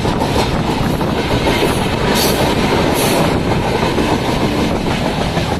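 Kamayani Express passenger train running at speed, heard from aboard: a loud, steady rumble and clatter of wheels on the rails, with two brief harsher bursts about two and three seconds in.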